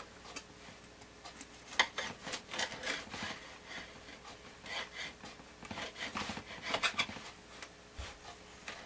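Serrated bread knife sawing through the hard crust of a loaf of Irish soda bread, a series of short scratchy strokes that come in a few bursts.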